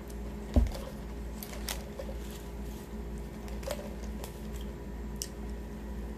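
A heavy paper drink cup is set down on the table with one dull thump about half a second in. Scattered light clicks and crinkles of paper food wrappers being handled follow, over a steady low hum.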